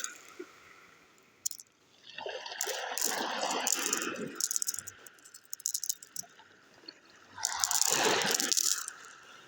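Sea waves surging in and washing back twice, each surge a swell of hiss shot through with many small clicks, with a quieter lull between.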